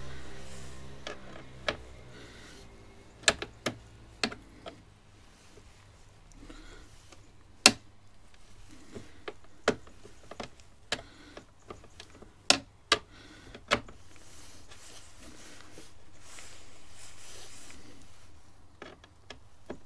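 A Torx screwdriver undoing small T25 screws from a motorcycle's plastic fairing panels: a dozen or so sharp clicks and taps at irregular intervals as tool, screws and plastic knock together.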